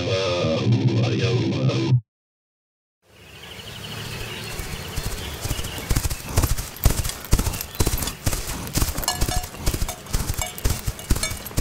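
A guitar music cue cuts off about two seconds in. After a second of silence, a faint outdoor ambience fades in, and from about halfway through, hoofbeats clip-clop unevenly.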